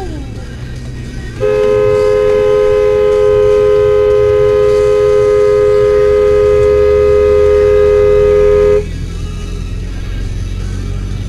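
Car horn held down in one long blast of about seven seconds, two notes sounding together, cutting off abruptly. Low road and engine rumble runs underneath.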